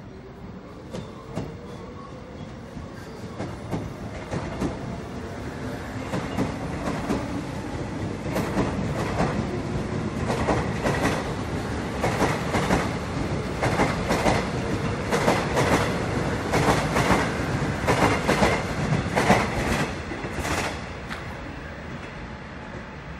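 Korail resistor-controlled electric commuter train pulling out and running past: a rising whine over the first few seconds as it gathers speed, then wheels clacking over rail joints, often in pairs, as the cars go by, easing off near the end.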